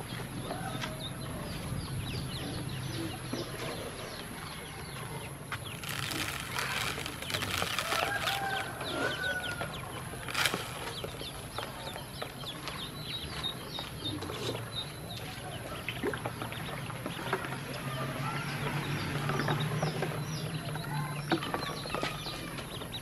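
A brood of yellow ducklings peeping over and over in many short high calls while they peck at feed in a plastic tub. There is a stretch of rustling about six seconds in, and a single sharp click near the middle.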